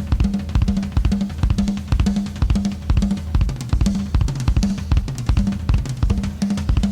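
Loud music with a driving drum-kit beat of kick, snare and cymbals over a deep repeating bass line, played as a speaker sound-check track.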